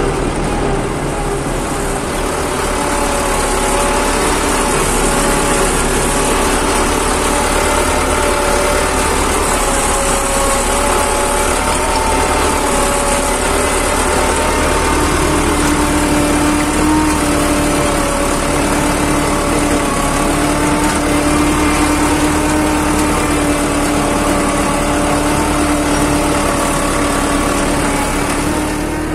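Fiat 640 tractor's four-cylinder diesel engine running steadily under load, pulling a moldboard plough through a field. A steady hum comes in about halfway through.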